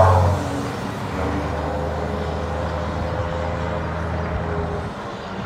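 Renault Premium 370 heavy truck's diesel engine running steadily on the road, a low drone with tyre and road noise. It drops in level about half a second in and again near the end.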